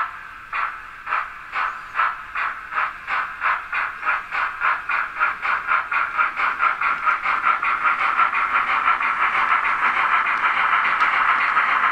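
Zimo sound decoder in a Roco H0 model of a DB class 50 steam locomotive, playing steam exhaust chuffs through the model's small speaker as the locomotive pulls away. The chuffs come about two a second at first and quicken steadily until they run together into a continuous hiss near the end.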